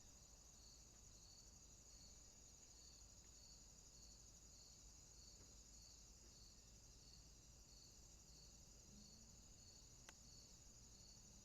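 Faint outdoor insect chorus: a continuous high-pitched trill with a second, lower chirp repeating about one and a half times a second. A single sharp click about ten seconds in.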